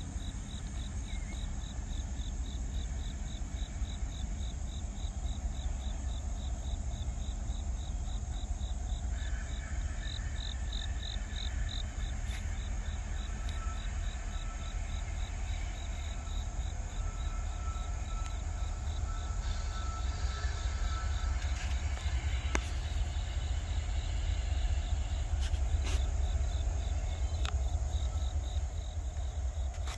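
Insects chirping in a steady, evenly pulsing rhythm over a low rumble that grows slightly louder toward the end as a distant freight train approaches.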